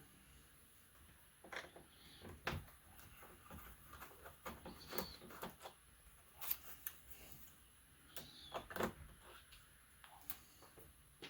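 Faint, scattered clicks and light taps of a screwdriver and small screws against a plastic laptop case as the screen-mounting screws are worked out.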